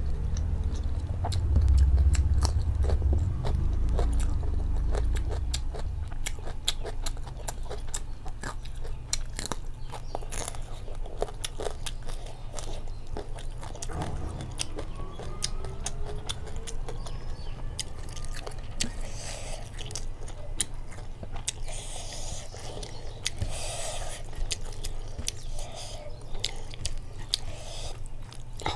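A person chewing and biting a mouthful of rice and curry eaten by hand, with many small mouth clicks and smacks; louder in the first few seconds.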